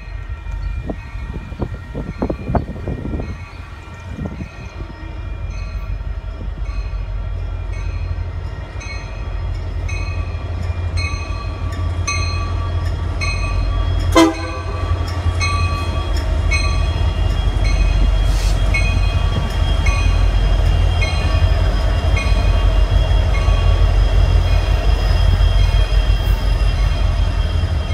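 Union Pacific diesel freight locomotive approaching and passing, its low engine rumble steadily growing louder. A bell rings at a steady beat throughout, and there is a short sharp blip about halfway.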